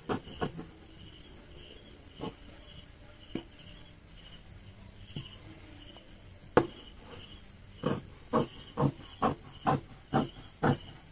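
Scissors snipping through fabric, stretch knit and mesh: a few scattered cuts, one sharper click about two-thirds through, then a steady run of snips about two a second.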